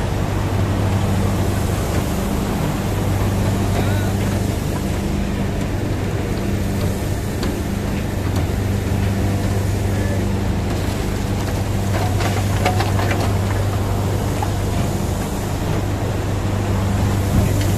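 Heavy hydraulic unloading machinery running with a steady low hum while a load of sugarcane slides and rustles out of a tipped truck bed. A few clattering knocks come about twelve seconds in.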